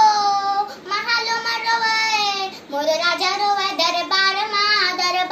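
A young girl singing unaccompanied in Chhattisgarhi Bharthari folk style, holding long notes that waver in pitch, in three phrases with short breaks for breath.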